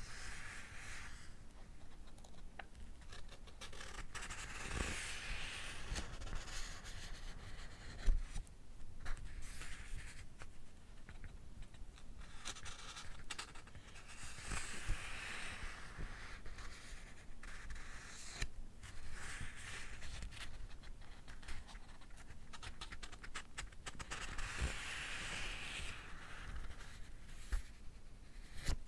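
Pages of a paperback bunko book being turned, a papery rustle about every ten seconds, with light scrapes and ticks of fingers on paper between the turns.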